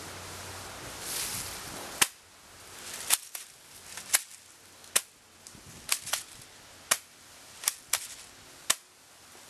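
Airsoft shotguns firing: about eleven sharp pops at irregular intervals, the first and loudest about two seconds in, after a couple of seconds of rustling.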